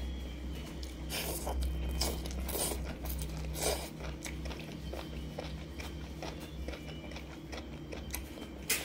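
Close-miked eating of spicy instant noodles: several short, wet slurps in the first few seconds, then quieter chewing and mouth sounds. A sharp click comes near the end, over a steady low hum.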